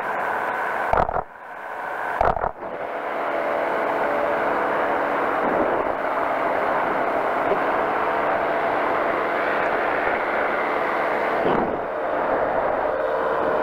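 Powered parachute's engine and propeller droning steadily in flight, mixed with wind rush. The drone is briefly interrupted twice near the start.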